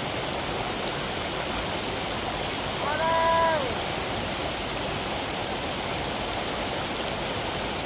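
Steady rushing water of a stream or small waterfall. About three seconds in, one long, high call rises and then falls.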